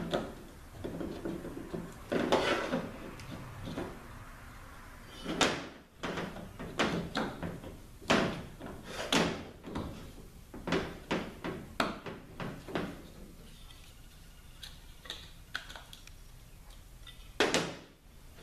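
Irregular knocks, clunks and scrapes of 4L80E overdrive clutch housing parts being handled on a steel workbench, as an aluminium piston and its rubber lip seal are worked together. A few of the knocks are much louder than the rest.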